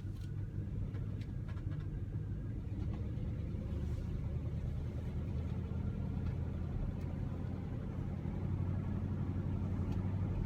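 1971 Oldsmobile Cutlass S's 350 V8, on a single exhaust, running steadily while the car is driven at low speed, heard from inside the cabin as a low drone that grows slightly louder.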